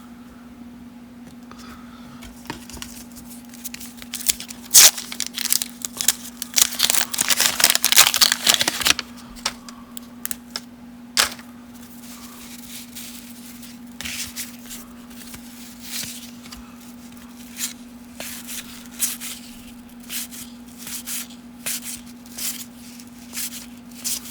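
A wax-paper baseball card pack being torn open and crinkled for several seconds, followed by scattered soft clicks and rustles of cards being handled and flipped through one at a time.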